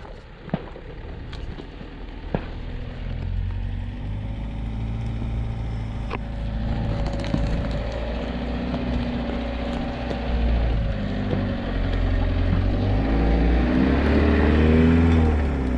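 A vehicle engine running, its pitch rising near the end as it accelerates. A few sharp clicks come before the engine sound builds.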